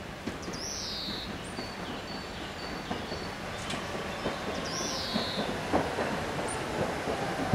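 Tatra KT8D5 articulated tram running in towards the stop, its wheels rumbling and clicking over the rail joints, growing louder as it nears.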